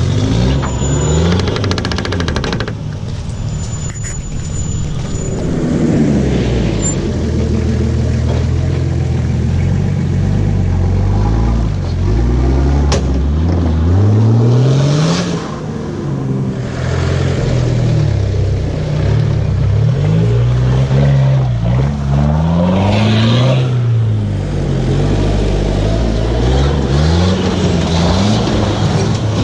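Four-wheel-drive vehicle's engine revving up and dropping back again and again under changing throttle, as when working over off-road terrain. There are short bursts of rushing noise about halfway and about three quarters of the way through.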